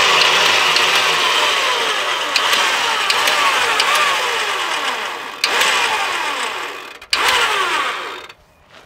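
Electric vehicle winch spooling in synthetic rope: a steady mechanical whirr with regular ticks. It stops briefly twice, then cuts off near the end.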